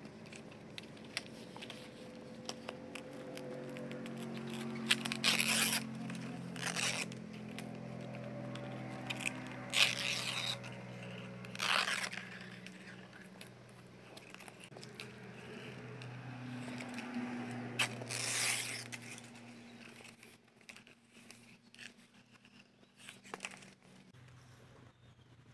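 Stiff coconut leaves rustling, scraping and tearing as they are handled and pulled apart, in a few short sharp bursts over a faint low hum.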